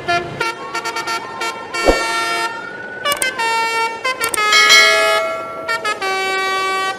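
A run of horn-like toots at changing pitches, some short, some held for about a second, with a faint slowly rising tone under the first few seconds and a single sharp knock about two seconds in.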